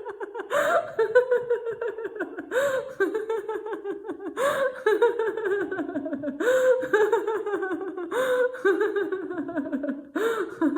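A woman's deliberate laughter-yoga laughing, one voice in bouts about every two seconds. Each bout is a run of quick 'ha' pulses that falls in pitch.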